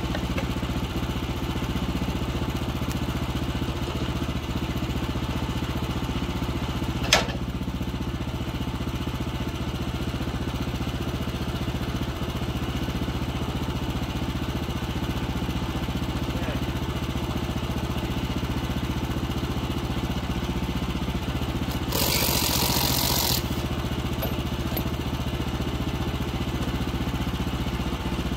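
A 14 hp gas engine on a Woodland Mills HM126 sawmill idles steadily while the log is turned by hand, with no cut being made. A single sharp knock comes about seven seconds in, and a hiss lasting about a second and a half comes near the end.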